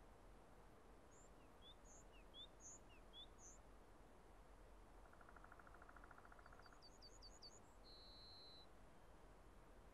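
Faint small songbirds calling over a quiet background hiss: a string of short high chirps in the first few seconds, a buzzy trill about halfway through, then a quick run of high notes and a thin whistled note.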